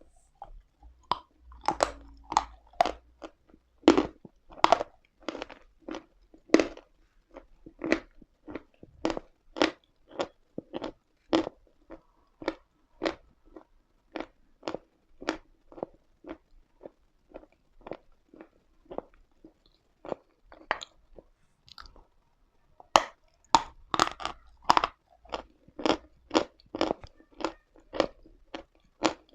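Chalk being crunched and chewed close to the microphone: a steady run of sharp crunches about two a second. The crunches pause briefly about two-thirds of the way through, then come back as a louder flurry.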